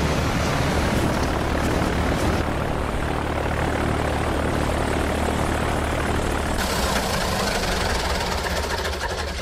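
A light ski-equipped bush plane's piston engine and propeller running steadily, a loud droning hum with a dense rush over it.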